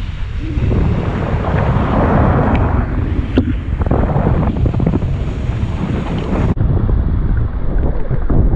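Wind buffeting an action camera's microphone as a wakeboarder is towed fast across the water, mixed with the hiss of spray off the board. The sound changes abruptly about two-thirds of the way through.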